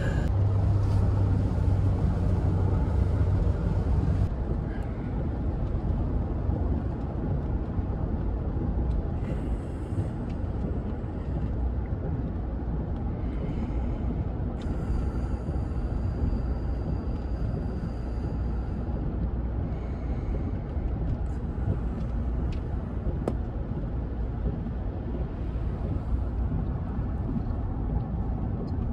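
Steady road and engine noise inside the cabin of a moving car, a low rumble, with a low hum that drops away about four seconds in.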